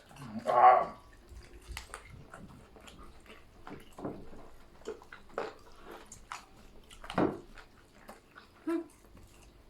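Close-up eating sounds of people chewing peppery grilled chicken: irregular wet clicks and mouth smacks. There is a short, louder vocal sound about half a second in and another louder sound around seven seconds.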